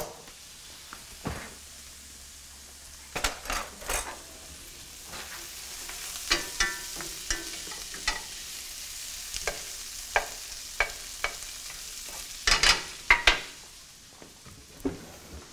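A few knocks, then from about five seconds in vegetables sizzling in butter and olive oil in a frying pan, with a utensil clicking and scraping against the pan as they are stirred. A quick run of louder clatters near the end.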